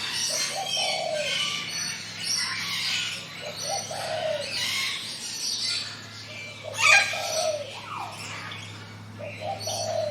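Several songbirds chirping and twittering in high, quick phrases, with a lower call coming back about every three seconds and one sharp, loud chirp about seven seconds in.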